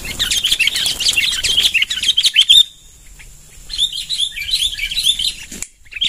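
Sooty-headed bulbuls (kutilang) giving rapid, excited chattering calls in two long bouts with a short lull between them. These are the agitated calls of bulbuls mobbing and fighting a decoy bulbul.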